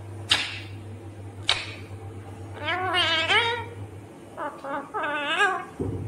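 Indian ringneck parrot vocalizing: two short harsh screeches about a second apart, then two longer high warbling calls whose pitch wavers up and down.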